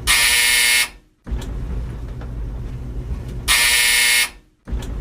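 Old tumble dryer's buzzer sounding twice, each a harsh, loud buzz under a second long, about three and a half seconds apart, over the low rumble of the dryer running. The rumble drops out briefly after each buzz.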